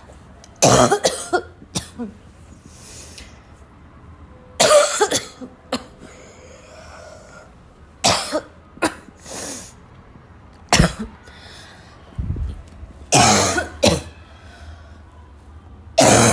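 A person coughing in a choking coughing fit: short bouts of one to three harsh coughs, a few seconds apart, with quieter breaths between them.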